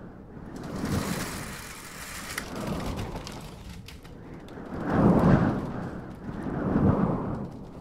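Storm sound effect: gusting wind with rain, the rush swelling and easing in waves, loudest about five seconds in.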